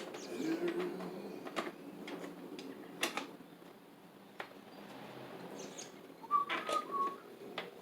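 Scattered sharp clicks and taps of mower parts and tools being handled during reassembly, over a steady low hum. A short high chirp, like a bird's, sounds near the end.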